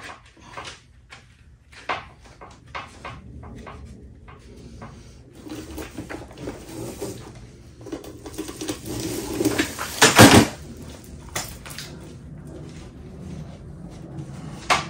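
Loose saw chain clinking and rattling as it is wound by hand onto a spool, with irregular clicks at first, then denser clatter and one louder clash about ten seconds in.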